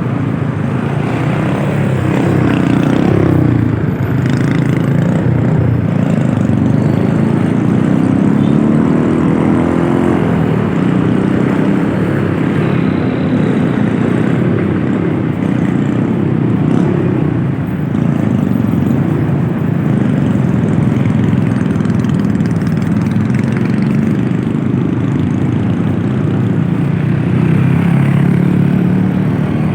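Motor vehicle engine running under way, mixed with steady road and wind noise; its pitch rises and falls as the vehicle speeds up and eases off.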